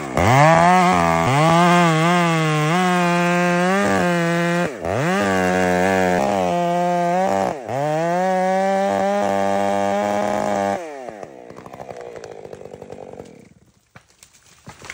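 Stihl MS 661 Magnum two-stroke chainsaw at full throttle, making the back cut through an eastern white pine trunk; its pitch dips briefly twice as the throttle eases and comes back on. About eleven seconds in the engine is let off and falls away, leaving quieter cracking and rustling as the pine goes over.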